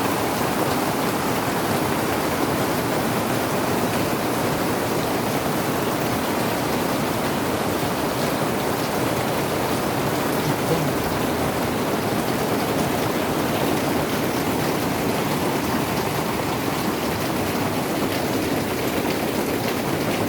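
Steady heavy rain pouring down and pattering on surfaces.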